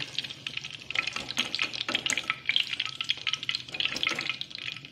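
Eggplant pieces deep-frying in hot oil: a steady sizzle full of small crackling pops.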